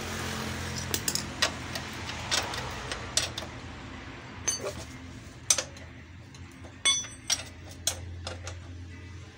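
Scattered metallic clinks and clicks of a combination spanner working the 17 mm rear axle nut on a Honda CD 70 as it is tightened, over a steady low hum.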